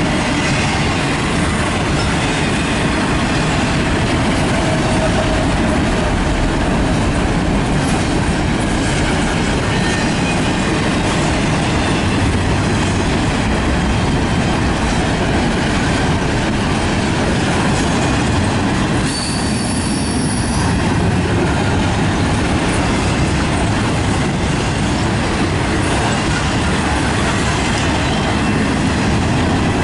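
Double-stack intermodal well cars of a Canadian National freight train rolling past on the rails: a steady, loud rolling noise of steel wheels on track, with a brief high squeal about two-thirds of the way through.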